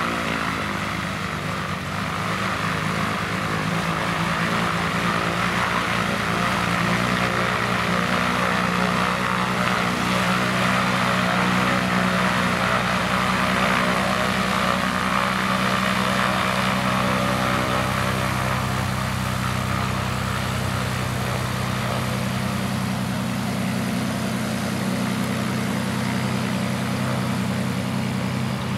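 Single-engine Cessna light aircraft taxiing, its piston engine and propeller running steadily at low power.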